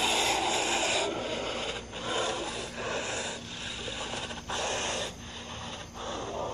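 An unseen wild animal giving a run of harsh, rasping calls with no clear pitch, each under a second long, one after another with short breaks. It sounds agitated: 'whatever it is pissed off'.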